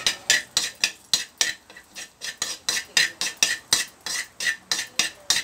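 A steel spoon scraping and clinking against a black kadhai in quick, even strokes, about three to four a second, as crushed cashews and almonds are stirred and sautéed in ghee.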